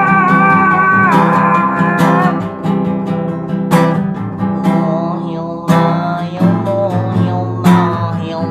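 Acoustic guitar being strummed, with chords ringing on and a hard strum about every two seconds. A wavering held melody note fades out about a second in.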